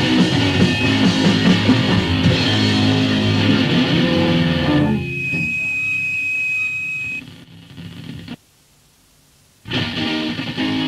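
Punk rock from a 1981 compilation cassette. One song ends about five seconds in, leaving low notes and a single held high tone that fade out. About a second of tape silence follows, then the next song starts with guitar near the end.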